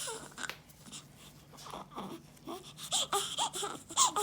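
A six-day-old newborn baby crying in short cries, each falling in pitch. The crying eases off briefly near the start, then comes back as a quick run of short cries in the second half.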